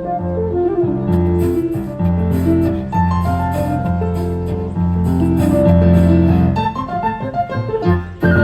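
Live instrumental ensemble playing a rumba criolla, a Colombian Andean dance piece, with held bass notes under a moving melody; a high sustained tone enters near the end.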